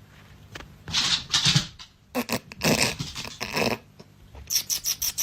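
A dog making a run of short, breathy noises in several clusters.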